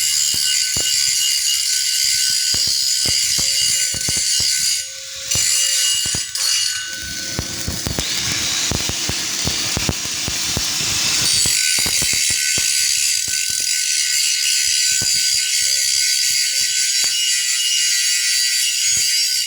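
Stick (SMAW) welding arc on pipe, crackling and sizzling steadily. It dips briefly about five seconds in, and sounds rougher and coarser for a few seconds in the middle before settling back to the steady crackle.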